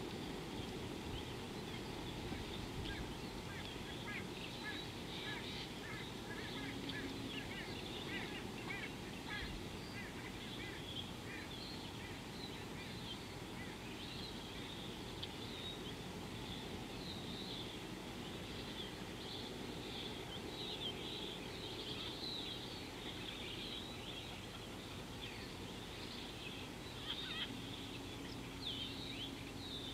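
Birds chirping and calling, many quick high notes coming thick and fast over a steady background hiss. A faint steady low hum comes in briefly about seven seconds in and again near the end.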